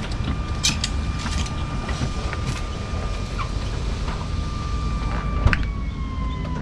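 Hydraulic slide-out system of a Grand Design Momentum fifth wheel running as the main slide retracts: a steady motor whine with a few clicks, the pitch sagging slightly in the last second or so.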